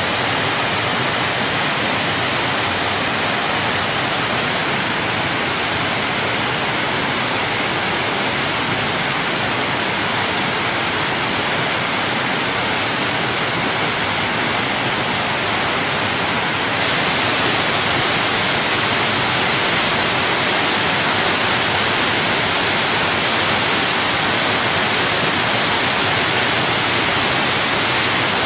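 Large waterfall: a steady, dense rush of falling water. It becomes a little louder and brighter about seventeen seconds in.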